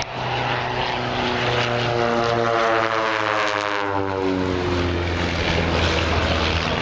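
Propeller-driven aerobatic biplane engines passing overhead: the engine note drops in pitch as one aircraft goes by about three seconds in, then settles into a steady low drone.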